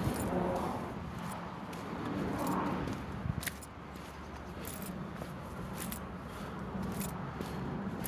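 Footsteps crunching on a gravel path, an irregular step every half second to a second, over a steady low rumble.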